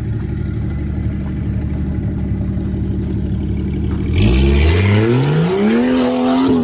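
Off-road SUV engine turning over at low revs as it crawls, then about four seconds in it is floored: the revs climb sharply and hold high. With it comes a loud rush of spinning tyres and spraying dirt as the vehicle claws up a rock ledge.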